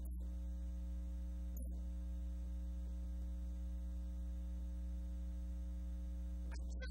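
Steady electrical mains hum in the audio feed, a low buzz with a stack of higher overtones, unchanging throughout, with one faint click about a second and a half in.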